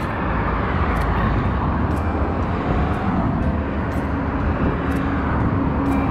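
Steady low rumble of road traffic, with a few faint clicks; a steady hum comes in about four seconds in and grows louder near the end.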